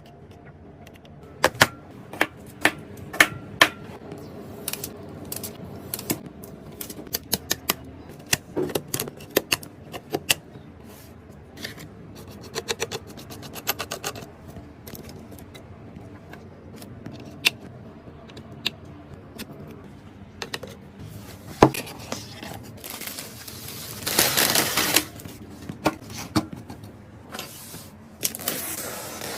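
Irregular clicks, clacks and taps of small hard parts being handled while a PC is put together, with a longer rustling stretch about two-thirds of the way in.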